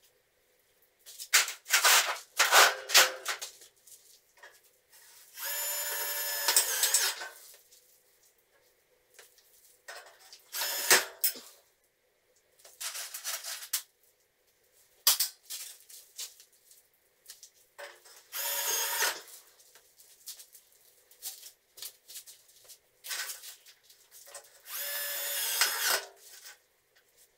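A cordless drill-driver running in three short bursts of a second or two each, with sharp knocks and clatter in between.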